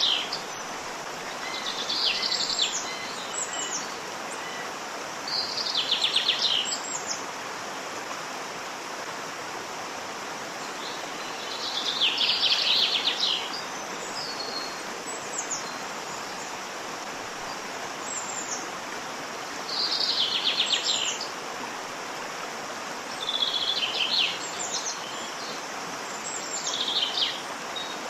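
Steady rush of a waterfall, with a bird singing short trilled phrases about a second long every few seconds, seven times in all, and a few thin high calls between them.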